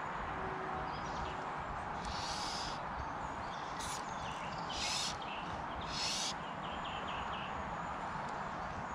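Steady outdoor background noise, with a few short hissy bursts about two, four, five and six seconds in.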